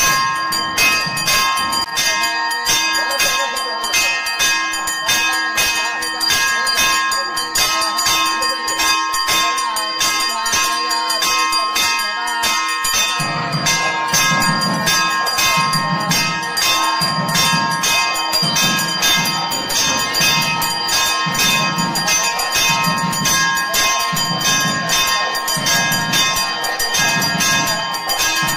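Hindu temple bells ringing rapidly and continuously during worship, a dense run of quick strokes with the metal ringing on between them. About halfway through, a low regular pulse joins in, a little under once a second.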